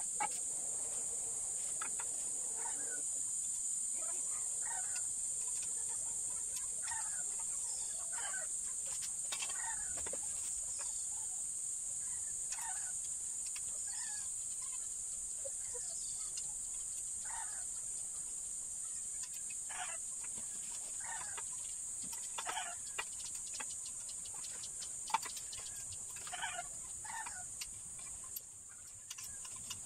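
Short bird calls every second or two over a steady high hiss.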